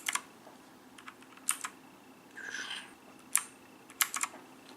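Keys of an RGB mechanical keyboard being pressed: sharp clicks in small clusters of one to three, about every second or two, as the function-key combination steps through the lighting modes. A brief softer rustling noise comes near the middle.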